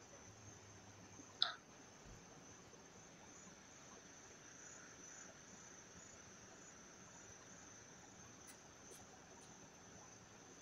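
Faint, steady, high-pitched chirring of insects in the hillside vegetation. One sharp click sounds about a second and a half in.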